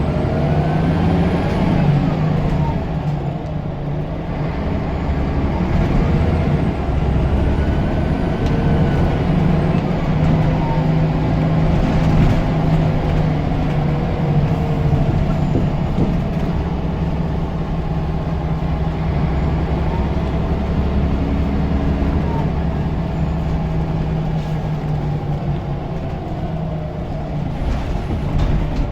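Turbocharged diesel engine of a Scania L94UB single-deck bus running under way with a steady drone, and a faint high turbo whistle that rises and falls a few times.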